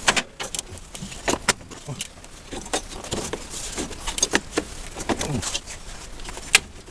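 Irregular metallic clinks and knocks of tools and parts being worked loose in a van's engine bay, about a dozen sharp strikes with the loudest near the end.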